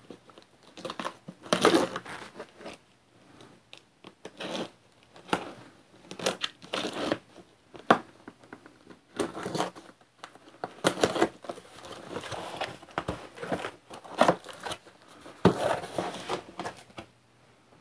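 Packing tape being torn and peeled off a cardboard box, then the cardboard flaps scraping and rustling as they are pulled open: a string of irregular rips and scrapes.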